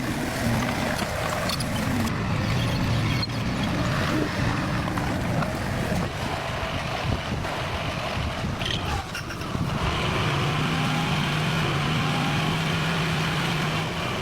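Diesel engine of heavy construction machinery running at work, a steady engine noise that settles into a more even hum about ten seconds in.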